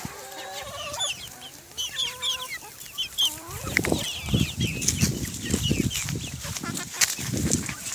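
Domestic hens clucking, with many short, high chirps through the first half. From about halfway in, irregular low rustling and thudding from the handheld camera being carried through grass takes over.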